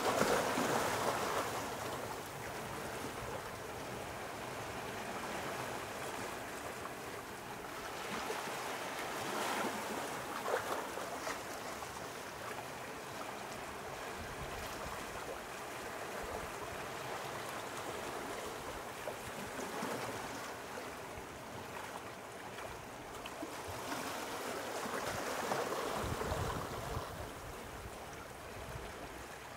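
Sea waves washing in, in slow surges that swell and ebb every several seconds, with a low rumble near the end.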